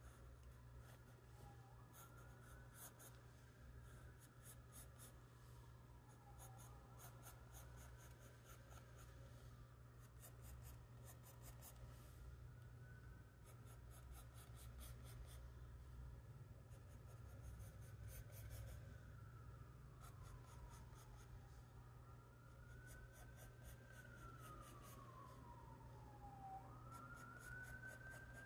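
Faint scratching of a charcoal pencil on sketchbook paper in clusters of short strokes. A distant siren wails slowly up and down throughout, over a low steady hum.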